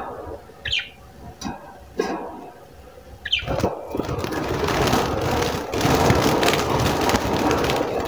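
Budgies in a small wire cage give two short squawks, then break into continuous wing flapping and scrabbling against the cage wire as a gloved hand reaches in to catch them.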